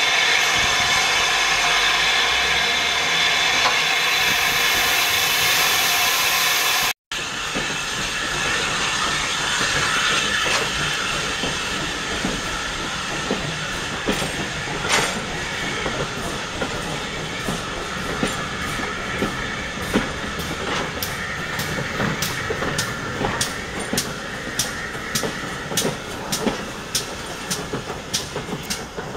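Standing steam locomotive giving off a steady, loud hiss of escaping steam. After a cut, a departing steam-hauled train rolls past with a rhythmic clicking that comes faster as it gathers speed.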